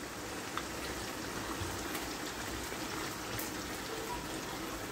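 Blended pepper and onion cooking in hot vegetable oil in a wok, a steady sizzle, with a few faint taps as blended tomatoes are scraped in from a glass bowl with a wooden spatula.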